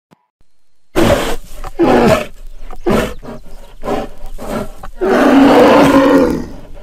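Animated-series creature roar sound effects: after about a second of quiet, a string of short, rough growls and roars, then one long roar about five seconds in that fades out near the end.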